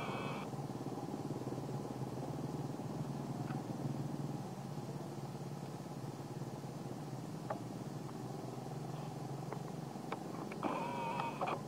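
A motor engine running steadily with a low, even drone. Near the end comes a short, high-pitched squeal from an infant long-tailed macaque.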